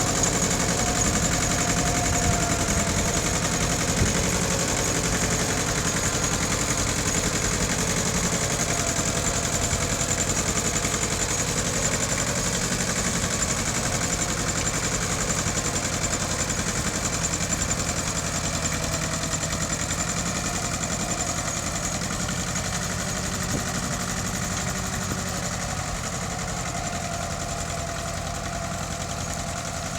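Engine of a Mitsubishi tractor running steadily while ploughing, slowly fading over the second half.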